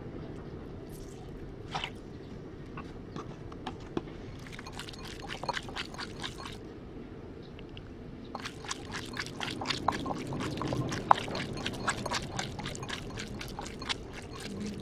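Hands squeezing and kneading thinly sliced raw beef in a bowl, making quick wet squelching clicks. The clicks come in two spells: a short one about a third of the way in, and a longer, denser one from a little past halfway to near the end, over a steady low hum.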